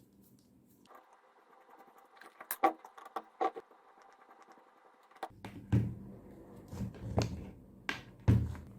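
Sharp clicks and knocks of the mini angle grinder's hard plastic and metal parts being handled during repair: a few in the first half, then four louder ones about a second apart. A low steady hum comes in about halfway through.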